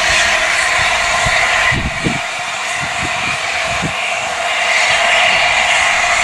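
Steam locomotive approaching along the line, a steady rushing hiss with no clear beat, with a few short low thuds between about two and four seconds in.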